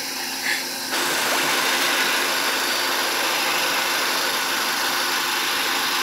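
Nissan Serena's engine idling with the air conditioning running: a steady hum under an even hiss that cuts in abruptly about a second in.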